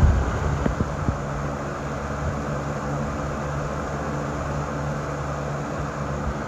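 Lasko Premium box fan running on high speed: a steady rush of moving air with an even motor hum underneath. Low wind buffeting on the microphone fades out right at the start.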